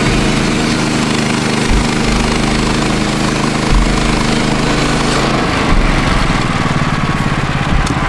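Gasoline-engine portable band sawmill running as its blade cuts lengthwise through a log, an engine drone under a dense cutting hiss. About five seconds in, the band clears the end of the cut and the hiss falls away while the engine runs on.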